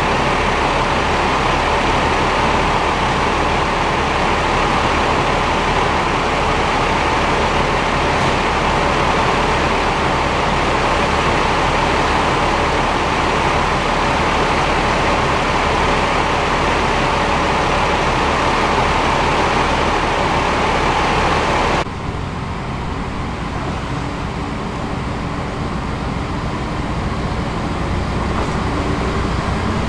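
Diesel railcar engines idling close by, a loud steady hum with a constant tone. About 22 seconds in it cuts abruptly to a quieter diesel railcar rumble that slowly grows louder as the train comes closer.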